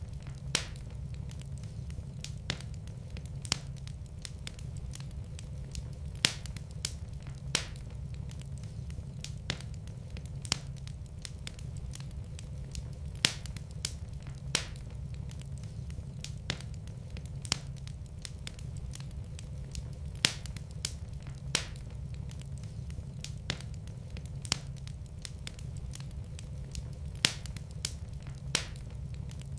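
Wood fire burning in a fireplace, with irregular crackles and louder pops over a steady low rumble of flame.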